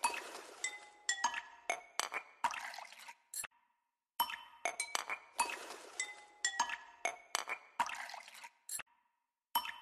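Wire whisk beating a thick cream mixture in a glass bowl: rapid clinks of the metal wires against the glass, each with a short ring, over the swish of the liquid. It comes in two runs, with a short pause about three and a half seconds in and another near the end.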